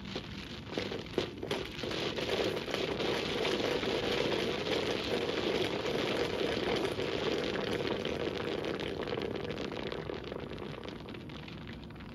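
Model geyser erupting: boiling water and steam burst up through the pipe into the glass bowl with a few sharp pops, then a steady hissing, splashing spray that slowly dies away.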